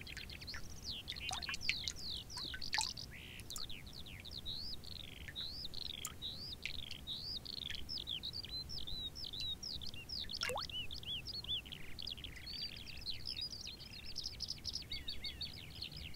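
Songbirds singing in a dense, unbroken stream of quick chirping and warbling notes, with one longer falling whistle about ten seconds in.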